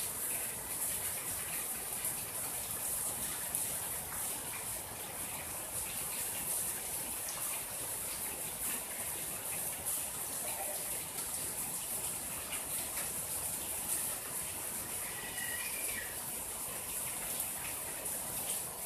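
Steady rain falling, a continuous even hiss of drops that does not let up.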